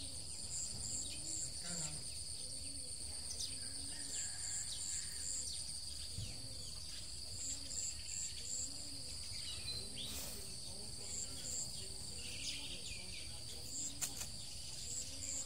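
Insects trilling steadily, with a high chirp that repeats in short runs of quick pulses, over a low steady rumble.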